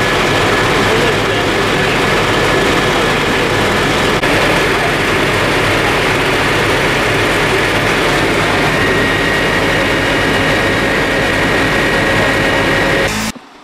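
Fire truck's engine running loud and steady close by, powering the aerial ladder, with a thin steady whine over its low drone; it cuts off just before the end.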